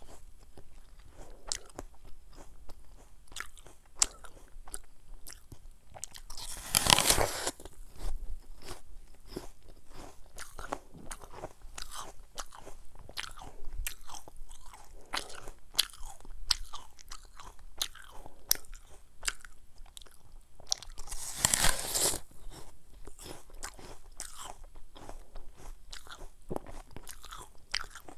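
Crisp crunching of a fresh apple being bitten and chewed, with many short crunchy clicks. Two big bites stand out as loud, longer crunches, about seven seconds in and again about twenty-one seconds in.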